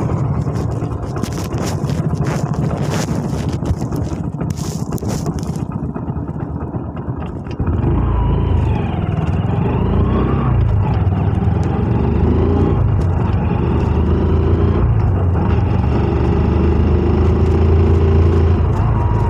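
Motorcycle engine running while riding, with wind buffeting the microphone. About seven and a half seconds in, the engine gets louder and holds a steady note, its pitch dipping and rising briefly as it pulls.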